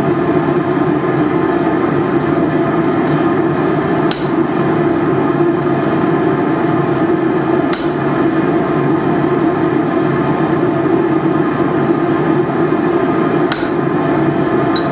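A forge running loudly and steadily, with three single sharp taps of metal on metal spaced several seconds apart, as when a mark is tapped on a wrench with a punch before slot-punching it.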